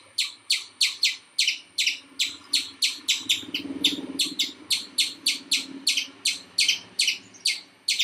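Rapid, regular chirping calls, about three a second, each a short high-pitched note sweeping down.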